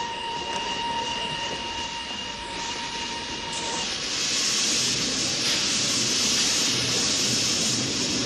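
Steam locomotive pulling into a station: a steady, thin high tone held until about four seconds in, then a loud hiss of steam that takes over for the rest of the time.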